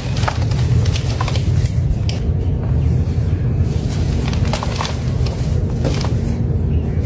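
Hands crushing crumbly chunks of dry sand and letting the loose sand pour through the fingers into a plastic bucket: a steady rustle with scattered crackles over a deep rumble.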